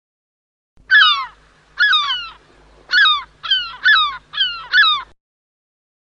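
Mattel Jurassic World pterosaur toy's electronic sound effect: seven short screeching calls, each falling in pitch, the first about a second in and coming quicker toward the end.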